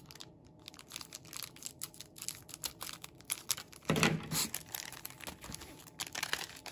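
Foil booster-pack wrappers crinkling and rustling as packs are handled and picked up, with many small crackles throughout and a short louder sound about four seconds in.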